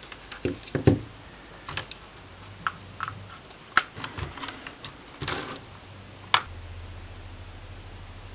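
Handling clicks from plugging USB-C cables into a small bench power supply and pressing its buttons and knob: a scatter of separate plastic clicks and short rattles, with one sharp click near the end. A faint low steady hum sets in just after it.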